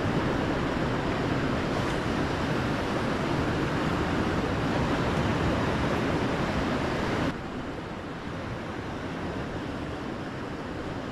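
Steady rushing noise of wind and lake waves against a rocky breakwall, with no distinct strikes. It drops suddenly in level about seven seconds in and carries on quieter.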